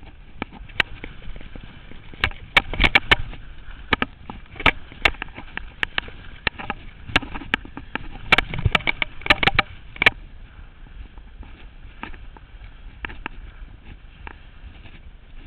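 Skis and ski poles knocking and scraping on hard, crusty snow: a run of sharp, irregular clicks and knocks, thickest about two seconds in until about two-thirds of the way through, then thinning out, over a steady low hiss.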